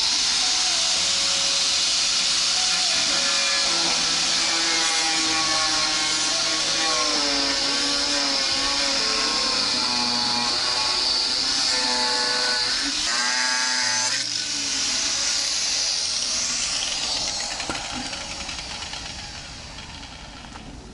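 Angle grinder cutting through a plastic motorcycle windscreen. Its whine wavers in pitch as the disc bites, then dies away over the last few seconds.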